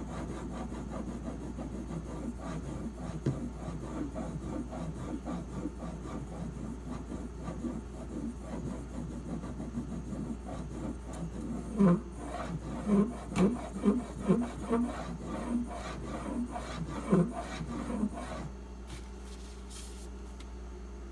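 Knife blade held in a clamp sharpening guide, stroked back and forth across a whetstone: a steady scraping rub, with a run of louder strokes past the middle. The strokes stop a few seconds before the end, leaving a low hum.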